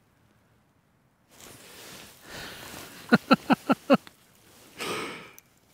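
A man laughing: a quick run of five short chuckles about three seconds in, then a breathy exhale.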